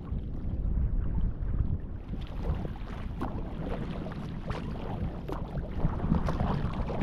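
Water splashing and lapping around a folding sea kayak as it is paddled, over a steady rumble of wind on the microphone. The splashes come thicker from about two seconds in.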